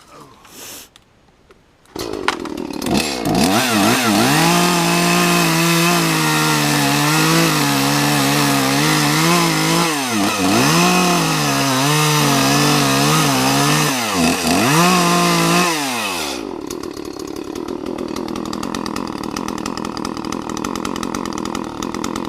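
Gas chainsaw coming in suddenly about two seconds in and running at high revs through a cut, its engine speed dipping several times under load while it cuts out the notch of a tree being felled. About sixteen seconds in the engine note drops to a lower, steady running sound.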